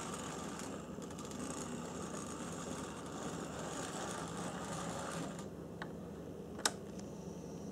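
HO-scale brass model steam locomotive, a Tenshodo JGR Neilson D9 4-4-0, running on the track with a steady mechanical motor-and-gear noise that drops away about five and a half seconds in. A faint click and then a sharp tick follow near the end.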